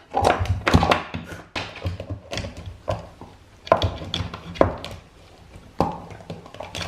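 Plastic measuring cup knocking and clattering against a wooden floor as a dog paws, pushes and gnaws at it: irregular thunks and taps.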